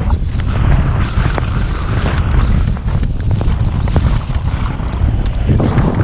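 Wind rushing and buffeting over a POV camera's microphone during a fast ski run, with the hiss of skis sliding over snow.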